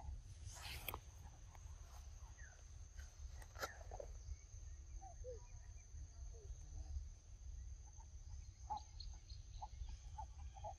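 Quiet outdoor ambience of a low steady rumble and a thin steady high tone, with short chirping animal calls now and then and several in quick succession near the end.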